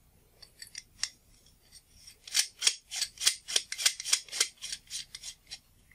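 Hands twisting the front barrel of a Nikkor 35mm f/2 lens to screw it back on: a run of short, crisp scraping clicks at about three a second, from the threads and grip on the metal barrel, after a few faint clicks.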